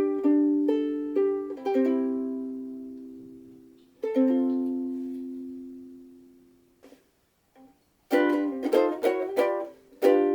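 Luna MV-2S soprano ukulele, with a solid Honduras mahogany body and black nylon strings, being played. A few quick chords, then two chords each left to ring out and fade, a brief near-silent pause, then brisk strumming starts about two seconds before the end.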